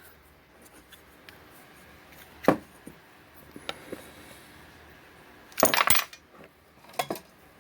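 Metal parts of a homemade filament spool stand (shaft, bushings, spacer) clinking and knocking as they are handled: a few separate knocks, the loudest a short cluster about two-thirds of the way through.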